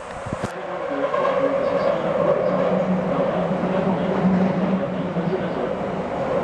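Nagoya subway 5050 series train running, heard from inside the car: a steady rumble with a low hum.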